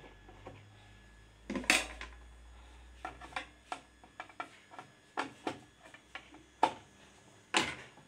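Irregular sharp clicks and knocks of a screwdriver working on a washing machine's plastic control-board housing and metal frame, with a louder clatter a little before two seconds in and again near the end.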